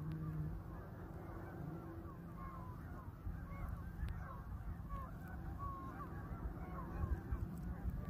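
A flock of geese honking, many overlapping calls at once in a steady chorus.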